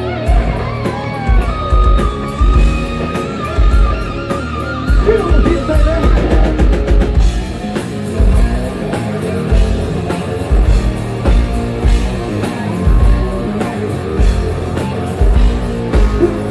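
Live hard rock band playing loud: distorted electric guitar with bent and held lead notes in the first few seconds, over bass and a steady beat of kick drum.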